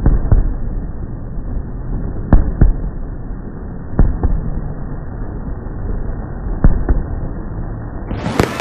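Fireworks going off: scattered sharp bangs every second or two over a steady low rumble, then near the end a burst of dense crackling as shells explode overhead.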